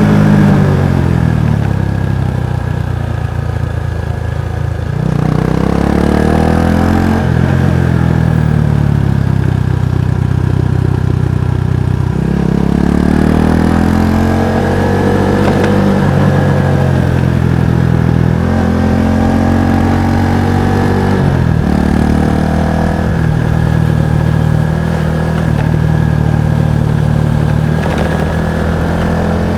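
Kawasaki Estrella's single-cylinder four-stroke exhaust while riding: the engine pitch climbs under acceleration several times and drops back at each gear change or throttle-off.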